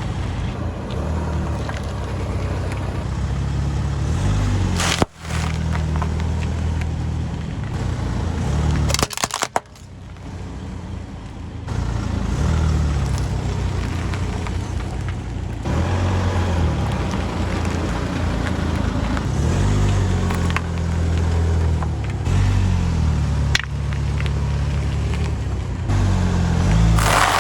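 Ford Kuga's engine running, its note rising and falling as the car rolls over objects. A few sudden sharp cracks and crunches are heard as things burst or break under the tyres.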